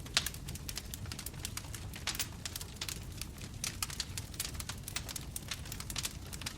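Bonfire crackling: wood snapping in irregular sharp pops over a low steady rumble of the flames, with one louder pop just after the start.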